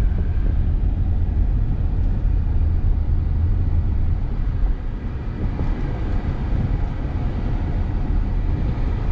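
Steady road noise inside a moving car's cabin: engine and tyre rumble with the heater fan running.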